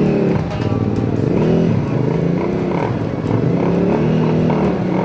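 Several motorcycle engines revving up and down in pitch again and again, the throttle blipped and eased as the riders hold the bikes to a crawl in a slow race.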